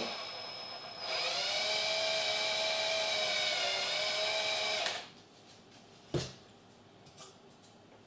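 Cordless drill with a 2 mm bit running steadily, drilling into a plastic graphics-card fan. It gives a high whine that dips slightly in pitch before stopping about five seconds in. A single sharp click follows about a second later.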